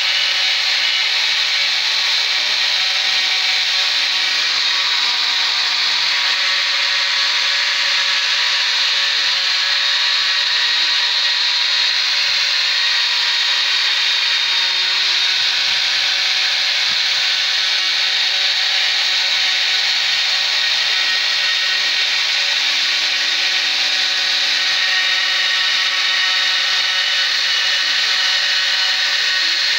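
Homemade CNC router's brushed DC motor spindle running steadily as its end mill cuts a circular pocket into a wooden block: a high whine over the hiss of the cutter chewing wood. A fainter low hum from the axis stepper motors comes and goes several times.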